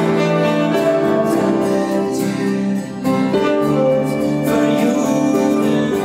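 Instrumental passage of a small acoustic band: upright piano, acoustic guitar and violin playing together with held, overlapping notes.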